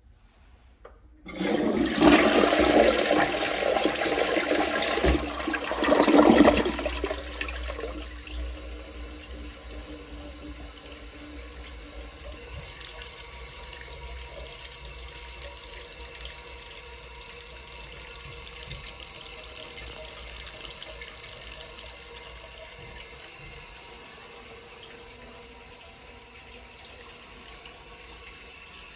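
TOTO toilet flushing: a sudden loud rush of water starts about a second in and surges again just before it fades. It then gives way to the steady, quieter run of water as the toilet refills.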